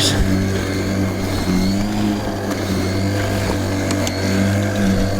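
Cordless battery lawnmower with a 40 cm cut running steadily as it mows, its electric motor and blade giving an even hum.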